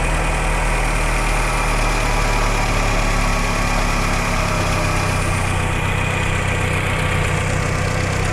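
Volkswagen Passat B3's 1.8-litre eight-valve four-cylinder petrol engine (code RP) idling steadily.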